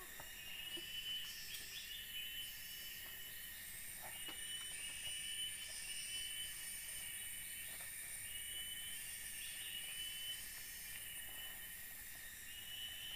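Forest insects chirring in repeated high-pitched phrases that come and go every second or two, over a steady higher whine. A few faint knocks are heard.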